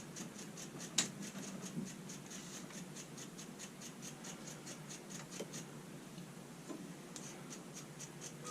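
Faint, fast, even ticking, about four ticks a second, with one sharp click about a second in.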